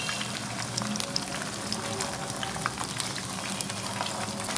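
Flour-coated fish pieces frying in hot mustard oil, a steady sizzle full of quick crackles and pops.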